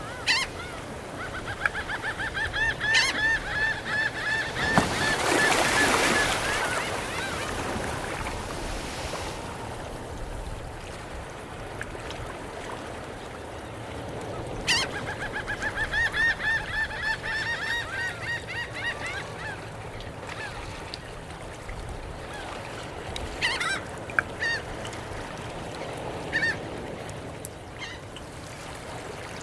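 Seagulls calling in two long runs of quick repeated notes, with a few shorter calls later on, over a steady wash of surf and lapping water at the tidepools. The water swells briefly near the end of the first run.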